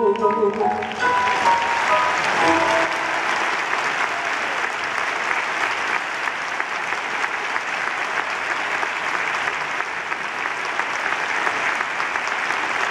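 Large audience applauding steadily at the end of a performance, as the last few notes of the music die away in the first seconds.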